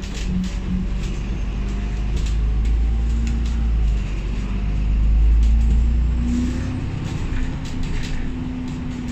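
Alexander Dennis Enviro500 MMC double-decker bus engine and drivetrain heard from inside the lower deck while the bus drives. There is a deep rumble that eases off about two-thirds of the way through, and a steady hum that rises slightly in pitch near the end. Short rattles from the cabin come and go.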